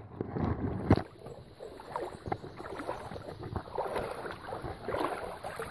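Water splashing and sloshing in small irregular bursts, with a sharper knock about a second in.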